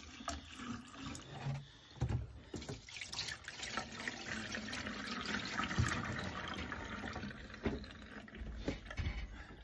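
Pink RV antifreeze running from the faucet and then poured from a jug, splashing into the sink and down the drain to fill the trap against freezing. A few light knocks come through the pouring.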